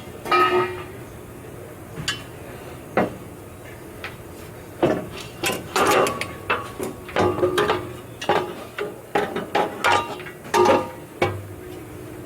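Metal clanking and knocking as steel exhaust pipes are twisted and worked loose under a truck: a few separate knocks at first, then a quick run of short ringing clangs over the second half.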